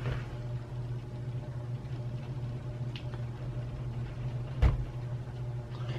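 Steady low hum with a faint tick about three seconds in and one sharp knock later, from small tools being handled on a desk.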